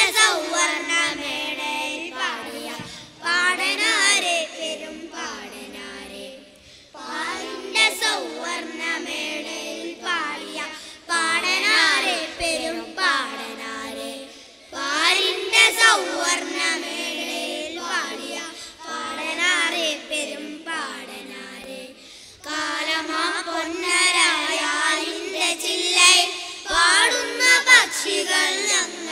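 A group of young boys singing a song together in unison into microphones, in phrases of a few seconds with short breaks between them.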